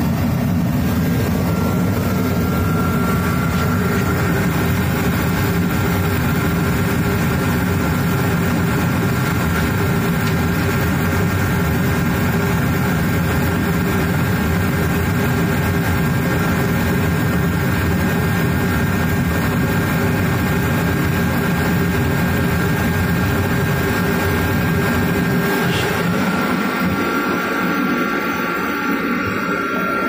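Mr. Heater 75,000 BTU forced-air kerosene heater running just after ignition: a loud, steady rush of the fan and burner with a thin high whine over it. The sound thins out a few seconds before the end.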